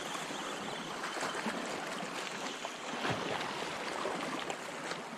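Shallow sea water lapping and fizzing at the edge as small waves wash in, a steady wash sprinkled with tiny splashes and bubble pops.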